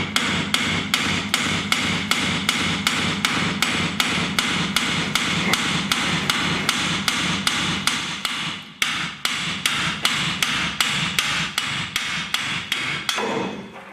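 Lump hammer repeatedly striking a steel front suspension upright to drive it off the strut body once its pinch bolt is out: quick, steady blows, about three or four a second, with a brief break about nine seconds in and the blows stopping near the end.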